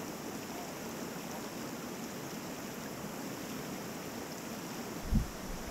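Creek water flowing steadily over rocks, an even rushing sound. A single short, low thump comes near the end.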